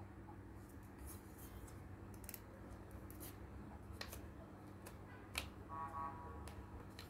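Plastic pieces of a snap-together kit clicking and scraping as they are handled and fitted together, with scattered sharp clicks, the loudest about five seconds in. A short pitched tone sounds about six seconds in.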